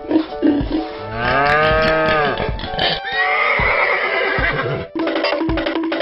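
Cartoon background music, with a pitched cry that rises and then falls, lasting about a second, a little after the start.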